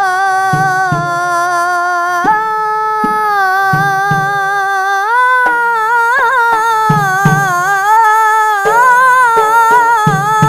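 A boy's voice sings an Islamic ibtihal (devotional supplication), holding one long melismatic note that wavers with ornaments and steps up in pitch about five seconds in. Low strokes on a hand-played frame drum sound under it at an uneven pace.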